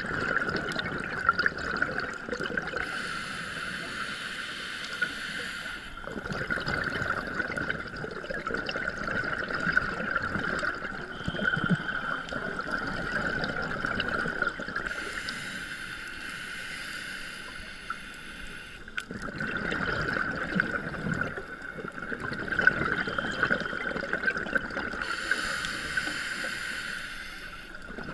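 Scuba diver breathing through a regulator underwater: three hissing inhales, each followed by the bubbling gurgle of the exhale, over a steady high whine.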